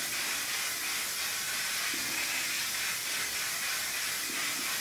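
Makeup setting spray hissing from its can in one long, steady, unbroken spray.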